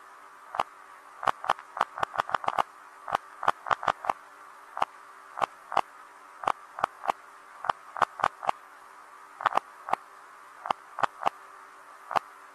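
Electronic typewriter keys being typed: quick, irregular clacks in uneven runs of a few a second with short pauses, over a faint steady hum.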